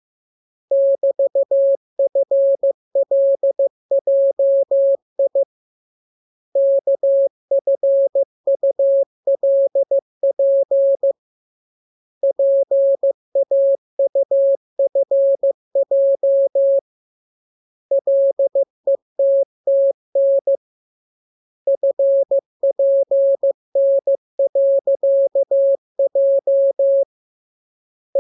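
Morse code practice transmission: a single clean, mid-pitched tone keyed in dots and dashes. The characters come in runs of several seconds, each separated by a pause of about a second, as in the groups of a training radiogram.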